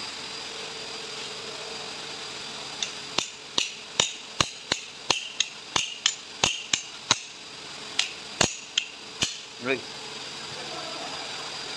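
A hammer tapping repeatedly on a double-acting valve block while a part is knocked into place: about twenty sharp, ringing strikes at two or three a second, stopping a couple of seconds before the end.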